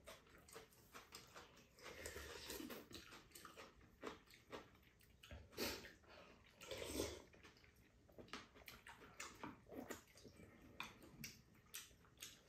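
Two people slurping hot rice cake soup from spoons and chewing, a run of short, wet slurps with a few louder ones in the middle.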